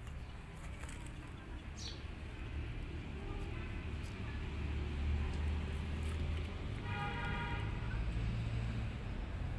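Low rumble of a vehicle passing, swelling to its loudest through the middle, with a short steady-pitched horn toot about seven seconds in. A brief high chirp comes about two seconds in.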